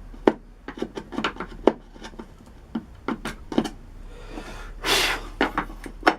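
Aluminium T-track and tools being handled on a wooden tabletop: a run of light knocks and clicks, with a longer scrape just before five seconds in.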